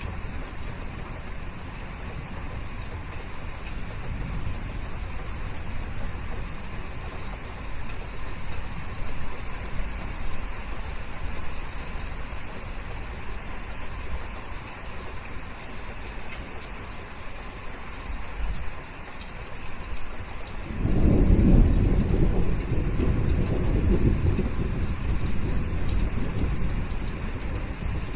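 Steady rain falling, with a loud, low rumble of thunder starting suddenly about three-quarters of the way in and rolling on to the end.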